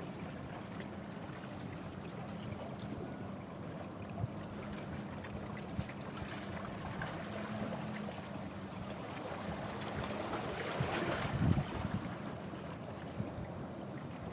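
Wind and surf at the seashore, with a steady low hum underneath; the wash grows louder for a couple of seconds about ten seconds in.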